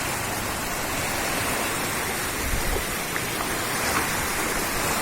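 Steady rush of floodwater pouring through an overflowing stream channel swollen by heavy rain.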